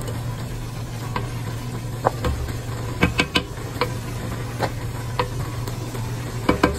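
Wooden spoon stirring chunks of beef in a simmering sauce in a metal pot, with scattered knocks and scrapes of the spoon against the pot and a bubbling sizzle. A steady low hum runs underneath.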